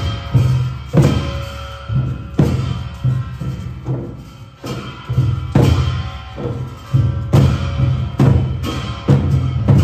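Traditional Himachali procession band playing: large drums beating heavy strokes in an uneven rhythm, with a wind instrument holding steady notes over them.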